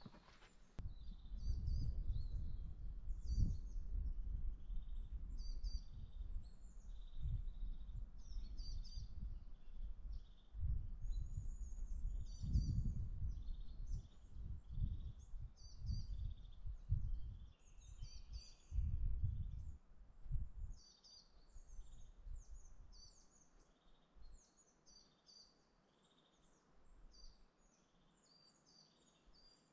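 Small birds singing, with many short high chirps and trills throughout. Under them an uneven low rumble on the microphone, the loudest sound, fades out about twenty seconds in.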